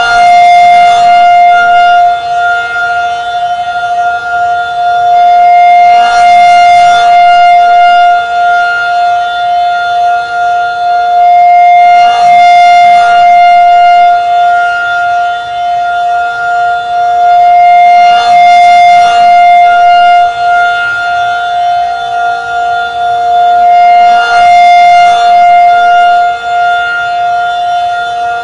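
Federal Signal 2001 SRN electromechanical outdoor warning siren sounding a steady single-tone alert. Its horn rotates at 8 rpm, so the tone swells and fades about every six seconds as it sweeps past.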